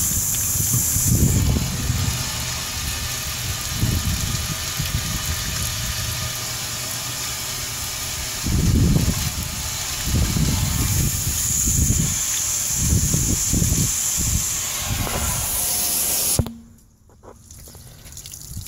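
Water from a garden hose rushing through a steel air-compressor tank, with the dirty rinse water splashing out of the bottom drain onto pavement, a steady hiss with irregular low rumbles. It cuts off suddenly near the end.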